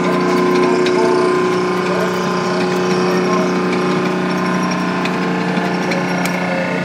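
FV432 armoured personnel carrier's Rolls-Royce K60 two-stroke multi-fuel engine running hard and steady under load as it drags a weighted tractor-pulling sled, with a few sharp clanks.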